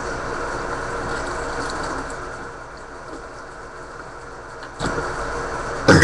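A steady low hum, dipping slightly partway through, with a short knock about five seconds in; a loud burp starts right at the end.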